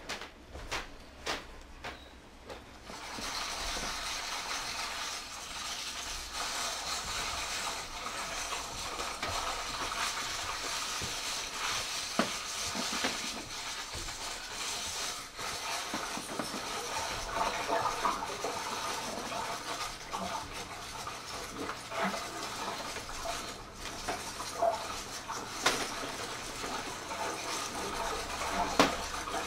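Experimental percussion music accompanying the dance: a few sparse clicks, then about three seconds in a dense scraping, rattling texture sets in and runs on, broken by scattered sharper knocks.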